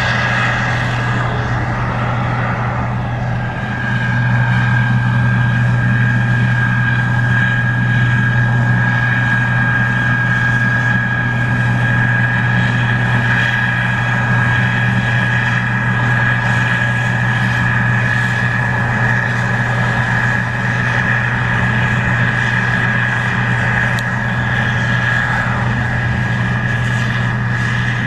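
Case IH 2388 Axial-Flow combine running steadily while harvesting corn: a loud, even diesel engine sound with a steady high whine above it, growing a little louder about four seconds in.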